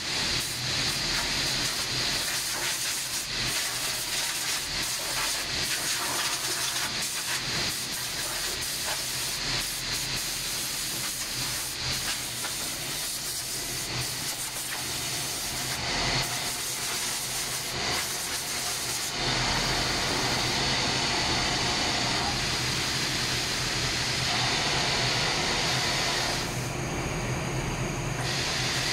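Steady hiss of rushing air from a Gema powder-coating booth and OptiCenter powder centre during a colour change, with scattered clicks and knocks through the first two-thirds. About two-thirds of the way through, a low hum under the hiss grows louder.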